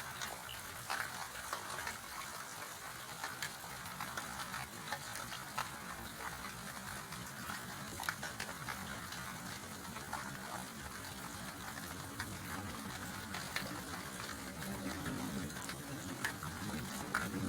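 Steady rain falling: a dense hiss with many sharp drop ticks scattered through it, and a little more low rumble near the end.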